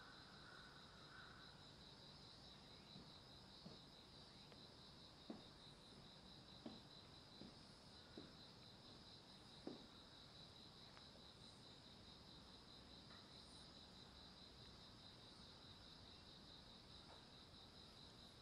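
Faint, steady chorus of insects, most likely crickets, trilling in one high, rapidly pulsing band. A few faint soft taps come between about three and ten seconds in.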